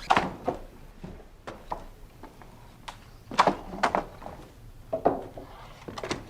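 Irregular wooden knocks and clunks, some with a short ring, coming in small clusters: one at the very start, a louder pair a little past the middle, and another near the end.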